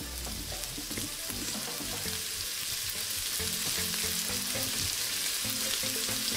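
Diced onions sautéing in hot oil in an electric pressure cooker's inner pot: a steady frying sizzle, the stage where the onions are cooked down toward caramelizing.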